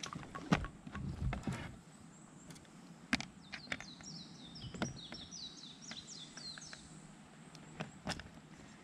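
A few sharp knocks and clicks from handling a landed largemouth bass, a landing net and rods on a float tube, the loudest about half a second in. A small bird sings a quick run of short, high chirping notes through the middle.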